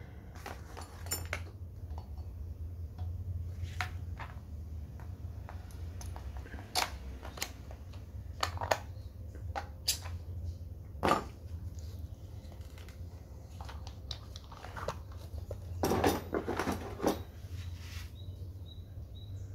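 Scattered clicks and knocks of hard plastic and metal parts being handled: a rotary hammer's interchangeable chuck head and drill bits being fitted and set down, over a steady low hum.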